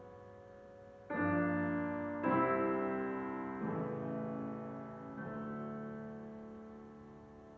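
Grand piano playing four slow chords, struck about a second in, two seconds in, three and a half seconds in and five seconds in, each left to ring and die away; the last chord fades out.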